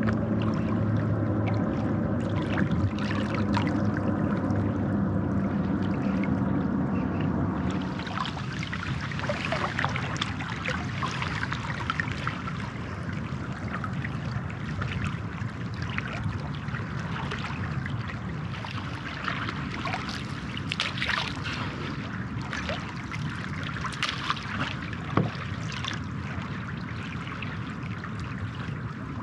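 River water trickling and splashing around a stand-up paddleboard, with irregular small splashes throughout. For the first several seconds a steady low hum runs under it, then stops abruptly about eight seconds in.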